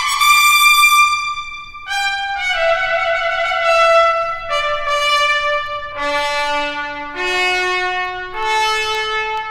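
Solo trumpet playing a series of long held notes. It starts on a high note, steps down note by note to a low note about six seconds in, then climbs back up.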